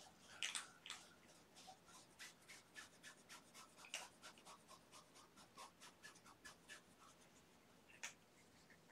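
Faint, quick scratching strokes, about three a second, from a kitten's claws, with a few sharper clicks near the start and a single one near the end.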